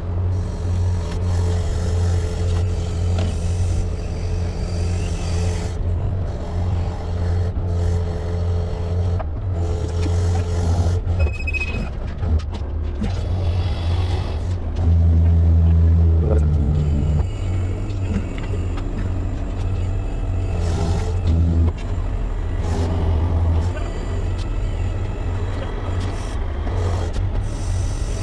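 Diesel engine of a 12-ton SANY truck crane running steadily with a deep hum, growing louder and higher for about two seconds about halfway through, then settling back.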